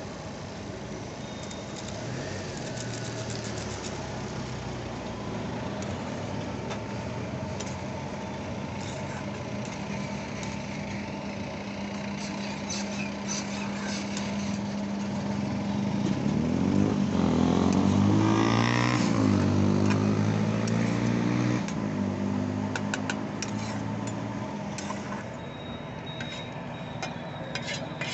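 Street traffic with a motor vehicle's engine humming steadily, then passing close and growing loud about two-thirds through before fading. Metal spatula clicks and scrapes against the cooking pan in short bursts, most at the end.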